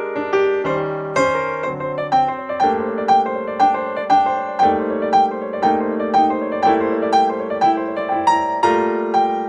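Background music led by a keyboard: a gentle melody with notes about every half second over held chords, with a pulsing sustained accompaniment coming in about three seconds in.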